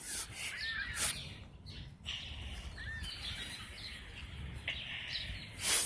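Birds calling, a few short chirps over steady outdoor background noise, with two brief rustling bursts, one about a second in and a louder one near the end.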